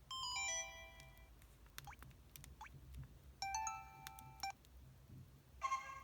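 Electronic sound effects from an EVER EV-W420 mobile phone: a quick falling run of short beeping tones near the start, then a brief chime of several tones sounding together about three and a half seconds in.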